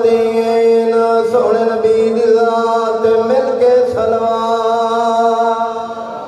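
A man's voice chanting the Arabic opening praise of a Shia majlis through a microphone and PA, holding long, drawn-out notes and stepping to a new pitch twice.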